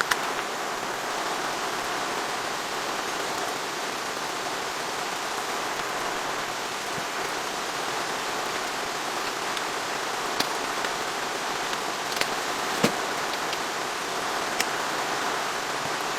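Steady rain falling, with a few sharper single taps of heavier drops in the second half.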